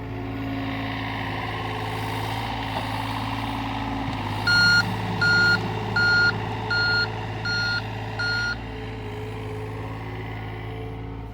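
John Deere excavator's diesel engine running steadily while its warning alarm beeps six times, about one and a half beeps a second, each beep quieter than the last.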